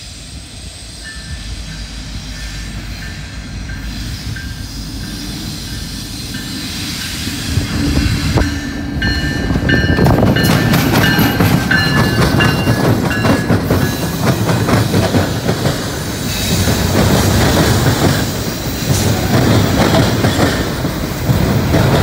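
Intermodal freight train approaching and crossing a railroad diamond. Its rumble grows louder, then from about ten seconds in the wheels make a dense, rapid clatter and banging as they slam across the diamond's rail gaps. A thin, high-pitched squeal comes and goes in the first half.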